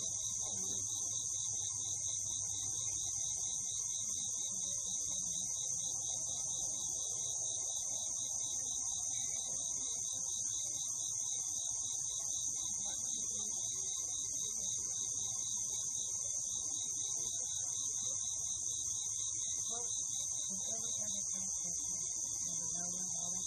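Steady insect chorus: a continuous high shrill with a faster pulsing trill just below it, unchanging throughout.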